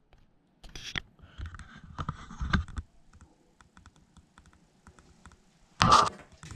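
Irregular light clicks and taps, with a louder, rougher burst of noise about six seconds in.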